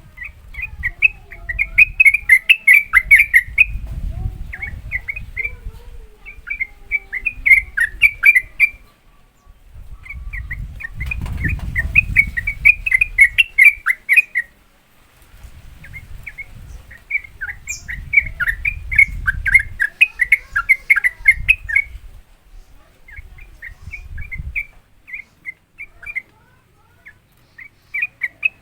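Yellow-vented bulbul (trucukan) singing its fast, chattering 'ropel' song: several phrases of rapid notes, each a few seconds long, separated by short pauses, with a low rumble beneath.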